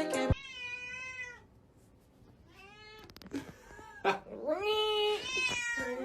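A cat meowing repeatedly: about four drawn-out meows, the one near the end rising and then falling in pitch. Backing music cuts off just after the start.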